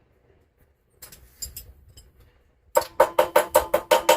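Faint clinks, then rapid metal tapping starting near the end, about six ringing strikes a second, like a hammer tapping metal parts on the tiller's engine shaft.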